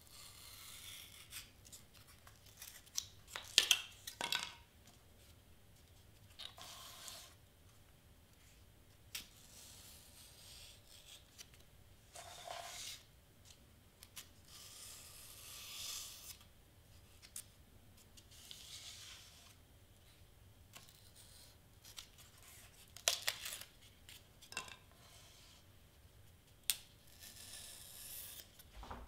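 Craft knife cutting through cardstock and foam board in short, irregular strokes, with a few sharper clicks of the blade.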